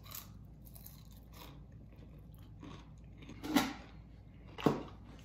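A person biting and chewing crunchy food close to the microphone, with soft chewing sounds and two sharp, loud crunches about a second apart in the second half.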